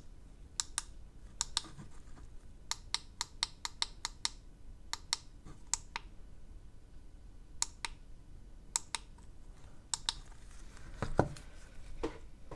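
Small plastic buttons on the floating lamp's remote control pressed over and over, sharp clicks often in quick pairs with short pauses between runs. A duller knock near the end.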